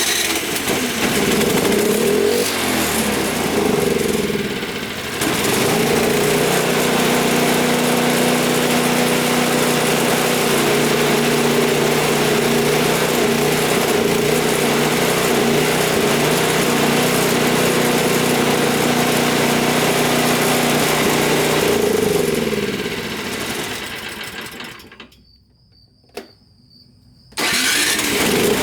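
A Toro Power Clear single-stage snowblower's small engine running after its gummed-up carburetor was cleaned with GumBuster solution: the fix has worked. It runs unevenly for the first few seconds with a short dip about five seconds in, then runs steadily, winds down and stops near the end, and is running again just before the end.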